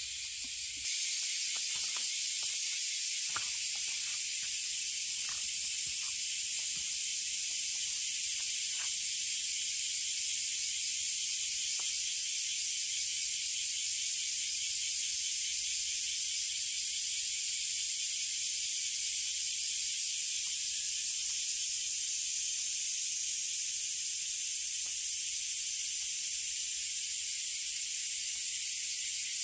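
Dense chorus of cicadas, a steady high-pitched buzzing hiss, which gets louder about a second in. Faint scattered ticks sound over the first ten seconds or so.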